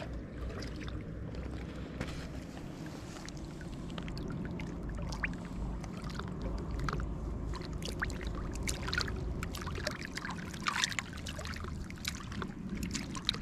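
Steady low rumble of moving river water, with scattered light clicks and taps through it that come more often in the second half.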